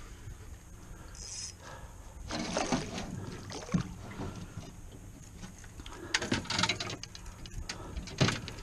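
A netted redfish splashing in the water beside a canoe, in irregular surges, with a few sharp knocks of gear against the canoe's hull.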